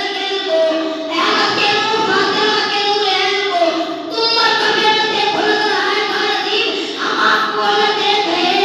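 A boy singing an Urdu manqabat (devotional praise poem) unaccompanied into a microphone, in long held notes, with short breaths between phrases about a second in, near four seconds and near seven seconds.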